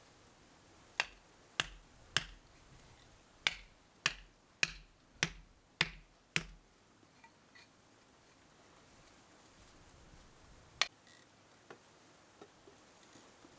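A run of nine sharp knocks about two-thirds of a second apart, then a single knock near the end, with a few fainter taps between.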